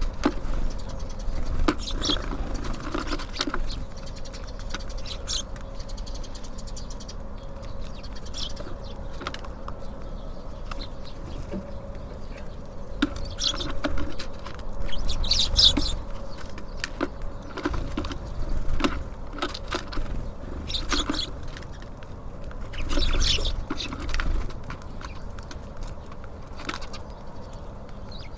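Small birds at a feeder: scattered short high-pitched chirps and calls, with light taps and wing flutters, over a steady low rumble.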